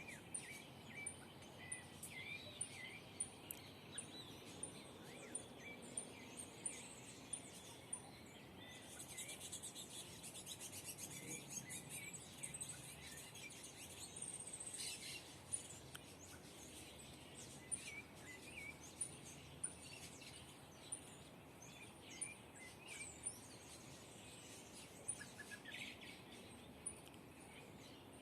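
Several songbirds chirping and calling over faint background noise, one repeating a short very high chirp about twice a second for the first several seconds, with a denser burst of chattering about ten seconds in.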